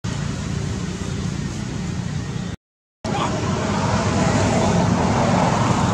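Steady outdoor rushing background noise. It drops to dead silence for under half a second about two and a half seconds in, then comes back slightly louder.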